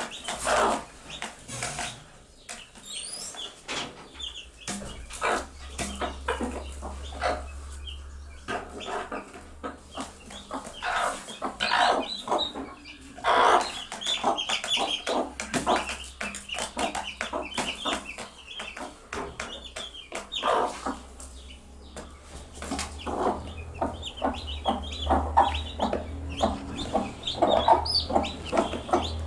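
Broody mother hens clucking in short, repeated calls, the food call to their chicks.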